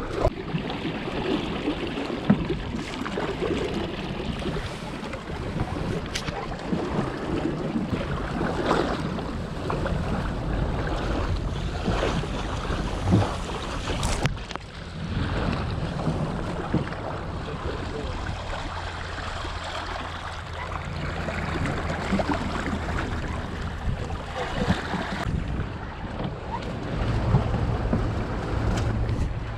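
Wind buffeting the microphone and water rushing and splashing along the hull of a small sailing dinghy under way.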